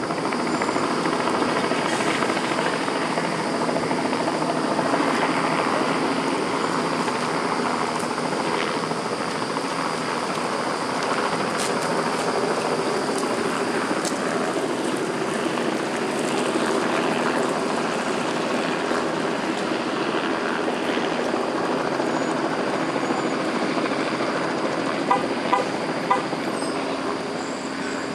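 Steady engine noise mixed with outdoor wind noise, with a few short clicks near the end.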